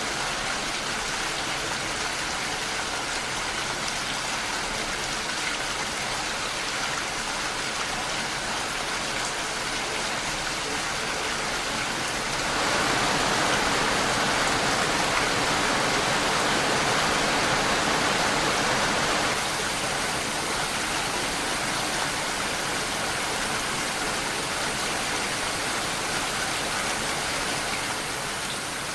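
Steady rain, an even hiss that grows louder for several seconds about midway through, then eases back and drops a little near the end.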